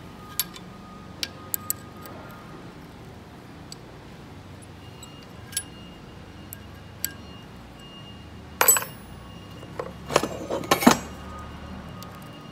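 Metal clinks of a wrench on a nut tack-welded to a broken bolt as the bolt is worked loose: scattered single clicks, then two louder bursts of metallic clatter, one just before two-thirds of the way through and one near the end.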